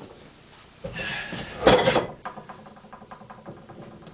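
Rubber blocks from a Centa cush drive coupling being handled on a workbench: a loud scraping rattle lasting about a second, then a run of small quick clicks and taps.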